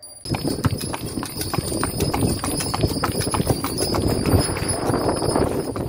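A mule's hooves clip-clopping on asphalt as it pulls a cart, with the cart rattling along behind. The sound starts suddenly just after the start.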